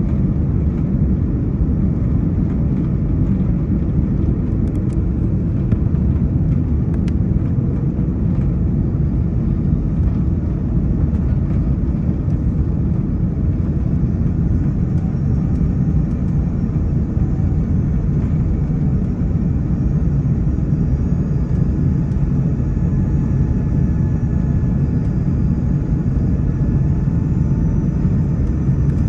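Steady airliner cabin noise: a low, even rumble of jet engines and rushing air heard from inside the cabin, with faint high whining tones joining in from about halfway through.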